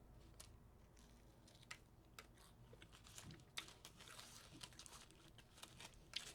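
Near silence, with faint, irregular short clicks and taps scattered through it over a low hum.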